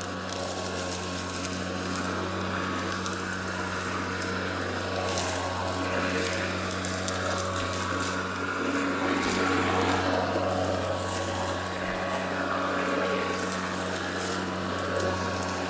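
Atlas 80V brushless cordless self-propelled lawn mower running steadily while cutting grass: an even electric hum with a low drone and an airy, blower-like rush from its finned mulching blade. It is much quieter than a gas mower.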